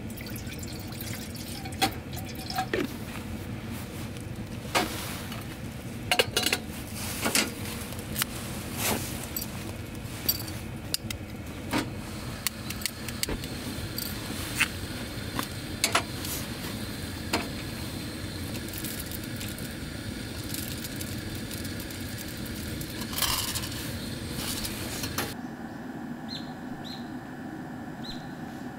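Camp cookware being handled on a tailgate: water poured from a plastic bottle into a metal pot, with scattered clinks and knocks of metal gear and the clicks of a torch lighter. Near the end the sound drops to quieter open air with a few short high chirps.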